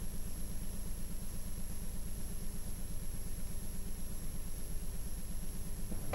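Low electrical hum from VHS tape playback, throbbing in a fast regular pulse of about seven a second, with a faint steady high whine over it.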